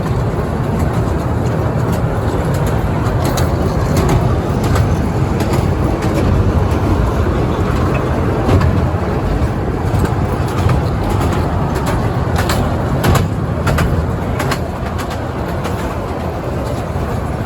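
Ferry boat's engine running with a steady low drone, mixed with a wash of noise, and a scattered series of short clicks.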